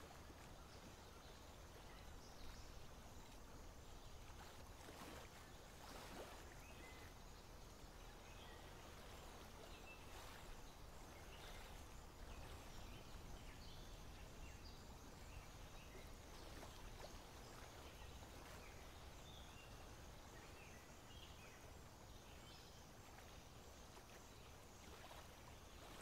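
Near silence: faint outdoor ambience, a low steady rumble with a few faint, short, high bird chirps scattered through.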